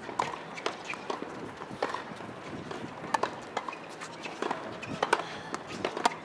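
Tennis balls struck by racquets and bouncing on a hard court during a practice rally: irregular sharp pops, one to three a second.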